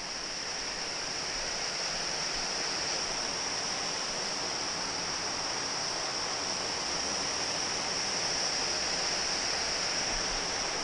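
A small creek waterfall pouring into a pool, with steady rushing, splashing water.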